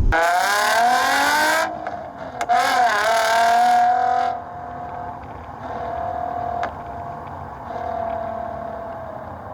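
Nissan 350Z's 3.5-litre V6 through an HKS exhaust, revving up hard twice under acceleration. The engine note then settles and fades as the car pulls away.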